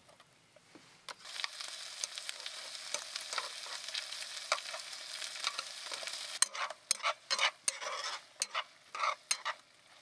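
Sliced bamboo shoots and small dried fish frying in a nonstick frying pan. A steady sizzle sets in about a second in, and from about six seconds on metal tongs clack and scrape against the pan in quick strokes as the food is tossed.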